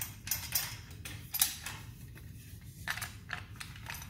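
Army-style folding shovel being worked closed by hand: a series of sharp metal clicks and clanks, the loudest about a second and a half in.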